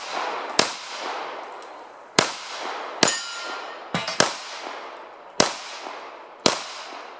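Rapid 9mm pistol fire from an HK P30L: seven shots at uneven intervals of roughly a second, one pair close together about four seconds in, each trailing off in a long echo. A short metallic ring follows the shot about three seconds in.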